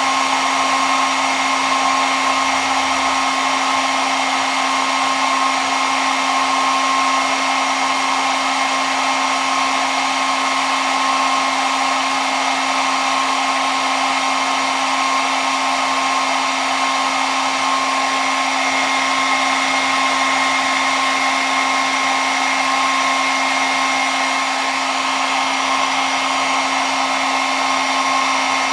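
Hair dryer running steadily: an even rush of blown air with a constant motor whine, unchanging in speed.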